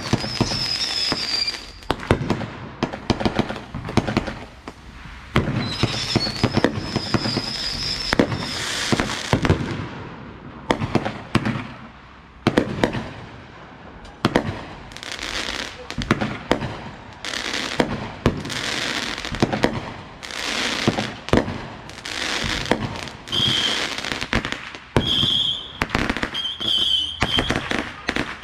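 A home-made consumer fireworks finale rack of cakes, Saturn missile batteries and single-shot tubes, firing a dense run of shots and bangs. High whistles sound near the start and again around six to eight seconds in, with a string of short whistles near the end.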